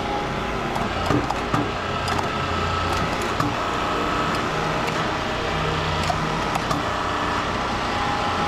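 Hydraulic cutting machine's pump running steadily under load as it cuts through a copper transformer coil, with scattered sharp cracks and snaps.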